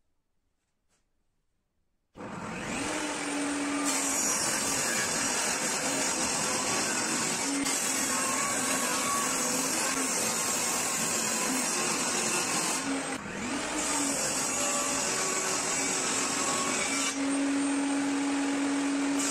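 After about two seconds of near silence, a benchtop table saw starts up with a rising whine and runs loudly, ripping thin wooden slats along the fence. The sound dips briefly about two-thirds of the way through, then comes back up.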